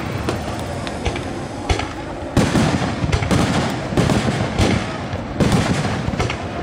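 Fireworks display: aerial shells bursting one after another, a rapid string of booms and bangs about one or two a second, with sharper cracks among them.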